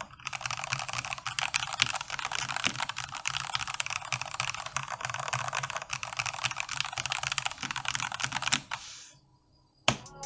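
Continuous typing on a GK61X keyboard with lubed and filmed Gateron Milky Black linear switches on a deskmat: a dense, fast run of key presses that stops about nine seconds in.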